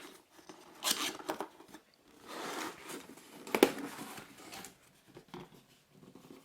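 Cardboard box being opened by hand: the lid and packaging rub and rustle in a few short bursts, with a sharp knock about three and a half seconds in.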